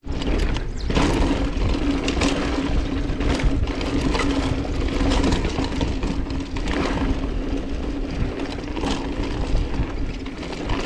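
Mountain bike riding fast down a dusty dirt trail. Tyres crunch over loose gravel, with frequent knocks and rattles over bumps, and wind rushes over the camera microphone. A steady hum runs underneath.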